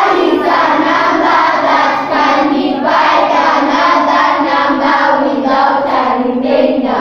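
A class of children reciting a sentence aloud in unison, in a loud, sing-song group chant that runs on without a break.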